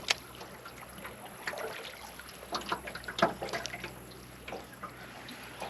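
Water trickling and lapping lightly around a small boat, with a scatter of small splashes and knocks every second or so.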